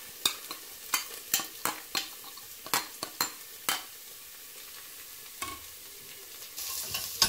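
Metal spoon clinking against a ceramic bowl, two to three sharp clicks a second for the first four seconds, as red lentils are scraped out into a pot of hot oil. Then a faint steady sizzle of the lentils frying in the oil, growing louder near the end as a ladle stirs them.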